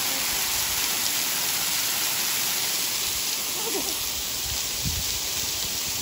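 Waterfall pouring steadily onto rock and into a plunge pool, heard from right beside the falling water.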